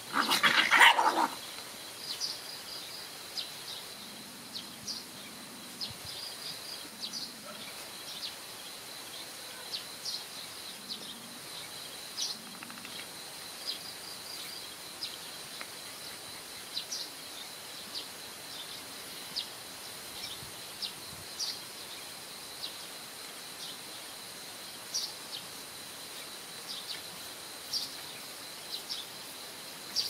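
A puppy gives a loud cry lasting about a second at the start, in rough play with its littermates. After that there are only short high chirps scattered throughout, over a steady high hiss.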